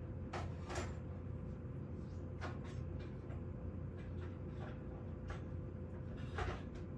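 A handful of light, irregular clicks and knocks, about eight in all, the loudest near the end, over a steady low hum.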